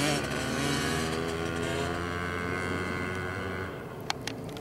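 Small dirt bike engines running at steady speed, fading about three and a half seconds in. Two short clicks near the end.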